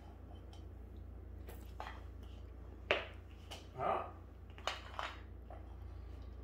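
Small plastic toy letter blocks clacking as a child sets them down on a hardwood floor, a few sharp knocks from about three seconds in.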